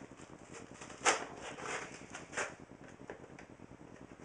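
Hands working at a taped cardboard shipping box to open it: rustling and scraping, with a sharp crack about a second in and a second, shorter one a little over two seconds in.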